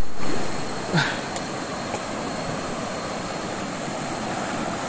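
Fast-flowing river running over rocks and rapids: a steady rushing noise.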